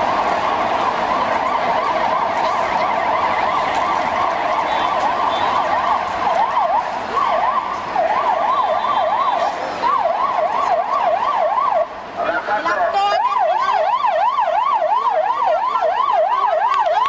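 Electronic siren in a fast warble, its pitch sweeping up and down about three to four times a second. At first several sweeps overlap into a dense wail; after about six seconds one or two clear warbles stand out, with a short break about twelve seconds in.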